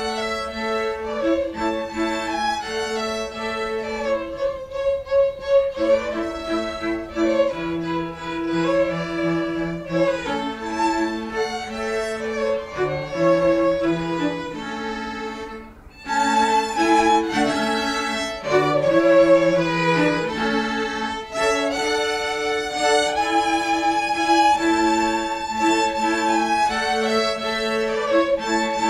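A string ensemble playing: violins carry the melody over lower strings in held notes. There is a brief pause just past halfway, after which the playing resumes.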